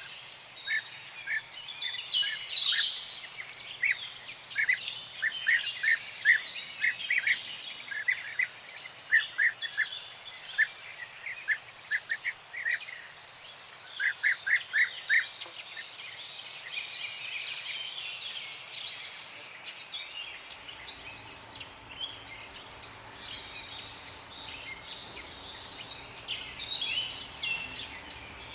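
Several songbirds chirping and calling together in a morning chorus, one bird repeating a short note several times a second in runs through the first half. About two-thirds in, a faint low hum comes in underneath.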